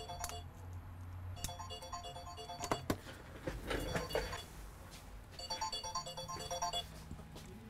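A phone's electronic ringtone: a short melody of bright beeping notes repeating with pauses between the phrases. A few knocks and a brief rustle of handling come between the phrases, a little before the middle.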